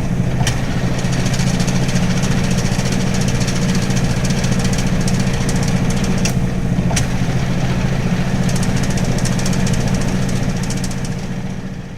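Hitachi NW-6AZ washing machine's non-inverter, belt-driven motor running with the drum empty: a steady deep motor hum with a few faint ticks, tapering off near the end.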